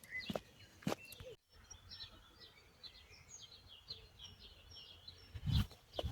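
Small songbirds chirping in a quick run of short high notes, with a few sharp clicks in the first second and a low thump near the end.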